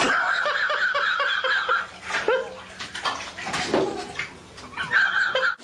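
Water splashing and sloshing in a half-full bathtub as a cat falls in and scrambles out. A high, pulsing cry sounds over it at the start and again briefly near the end.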